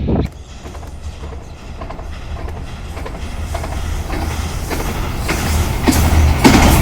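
Express train approaching, growing steadily louder, with the wheels clicking over the rail joints.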